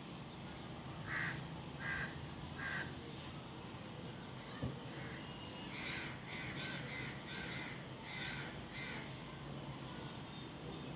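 A bird calling harshly, three separate calls, then a quick run of about seven calls in the second half. A single brief knock about halfway through.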